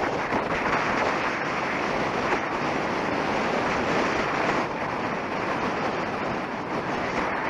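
Strong wind blowing over the microphone: a loud, steady rushing noise, easing slightly a little past halfway.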